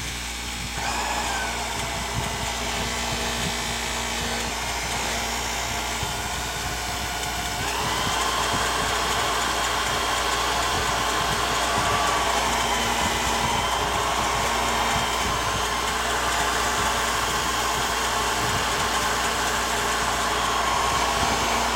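Bench grinder with a cloth buffing wheel running steadily while a drill spins a sewing machine's presser foot bar against it to polish it. About eight seconds in a higher whine rises in pitch and the sound gets louder, then holds steady.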